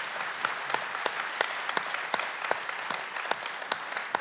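Audience applauding steadily, a dense patter of many hands with individual claps standing out.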